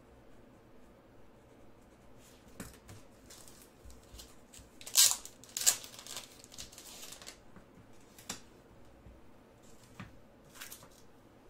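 Trading card packaging being handled and opened by hand: a run of short crinkling and tearing noises, the two loudest close together about five seconds in.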